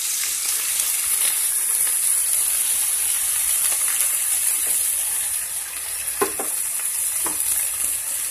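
Small fish frying in oil in a pan: a steady sizzle as they soften in the oil after salt and chili powder go in. Two short clicks sound near the end.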